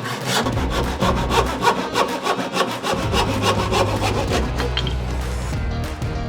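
Hand saw cutting through wood in quick, repeated strokes, over background music with a steady low bass.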